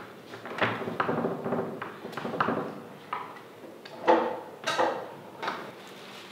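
Irregular knocks and clatter as a metal skewer-making box and wooden skewers are worked against a table to skewer cubed meat, with about six louder bangs spread through.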